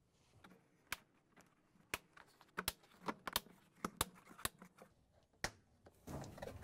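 Plastic locking tabs on a top-load washer's tub cover snapping into place as they are pressed down around the rim: about a dozen sharp clicks at irregular intervals, followed by a rustle of handling near the end.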